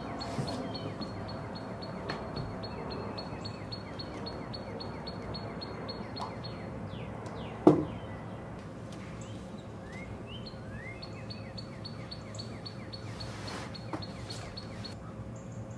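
Backyard birds calling: a rapid high chipping of about six notes a second, broken in the middle by a few short rising whistles. A single sharp knock sounds about halfway through.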